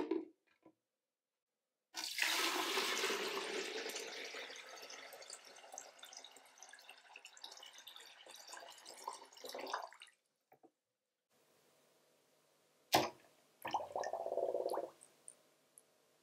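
Water pouring in a steady stream into an empty clear plastic jug for about eight seconds, loudest at first and getting quieter as the jug fills. A light knock at the start, and near the end a sharp knock followed by a short burst of sound.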